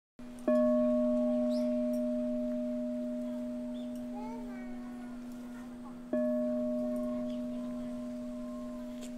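A crystal singing bowl is struck with a mallet twice, about five and a half seconds apart. Each strike sets off a long, steady ringing tone with fainter higher overtones that slowly fades.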